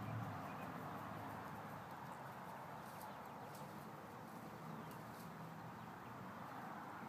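A basenji puppy running flat out around a garden, its paws pattering faintly on paving and grass. A few soft ticks come between about three and five seconds in, as it runs through the plants.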